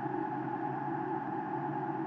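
Blizzard wind blowing steadily, a continuous drone with no gusts or breaks.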